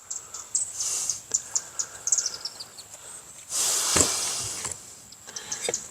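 Small clicks and ticks of hand tools and parts being handled while a weed whacker is taken apart, with a rush of noise lasting about a second and a knock in it about four seconds in.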